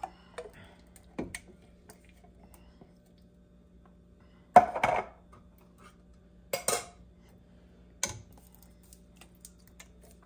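Kitchen clatter of metal cans against a cooking pot as cans of tomato puree are emptied into a sauce pot: a few separate knocks and clinks, the loudest clank about halfway through and a double clink a couple of seconds later. A faint steady hum runs underneath.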